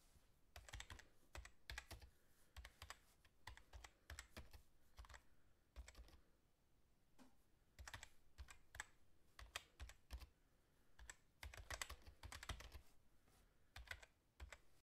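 Faint computer-keyboard typing: irregular runs of key clicks with short pauses. It is a typing sound effect matched to text appearing letter by letter.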